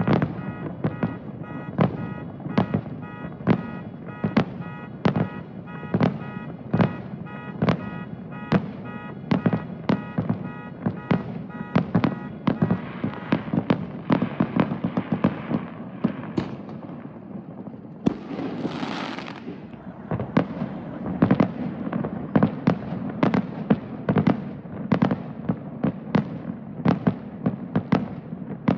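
Aerial fireworks shells bursting in rapid succession, several bangs a second over a continuous low rumble, with a rising hissing rush about two-thirds through. A steady high tone sounds under the first part of the barrage.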